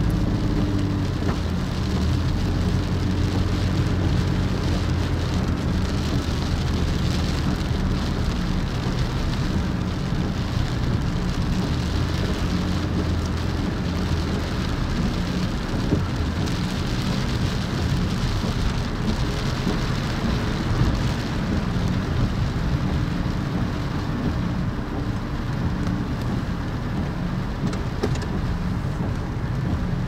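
A car driving on a wet road, heard from inside the cabin: steady tyre hiss and road rumble over a low engine hum, the engine tone plainest in the first half and fading into the rumble later on.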